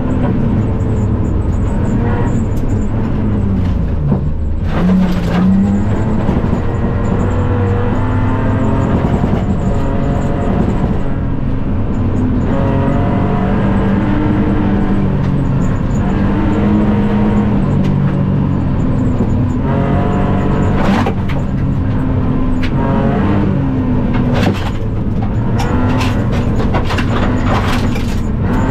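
BMW E46 3 Series rally car's engine at stage pace on a gravel road, heard inside the cabin, its revs rising and falling through gear changes and braking. Sharp knocks from stones and bumps striking the car come through a few times, most often near the end.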